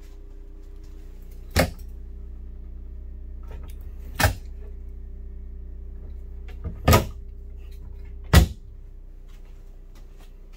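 Wooden bathroom vanity cabinet door and pull-out being opened and shut: four sharp knocks a couple of seconds apart, over a steady low hum.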